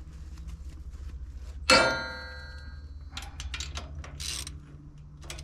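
A steel part is struck and rings out in one loud metallic clang about two seconds in, followed by a few lighter clinks and rattles of metal tools and parts.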